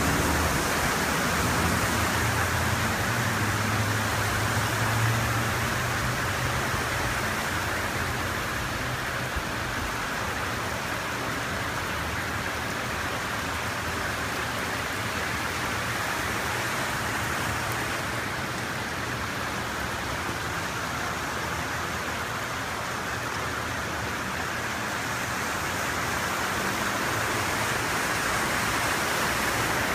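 Heavy rain and floodwater making a steady rushing noise across a flooded street. The low hum of a passing city bus's engine is heard in the first several seconds, and near the end a vehicle splashes through the water.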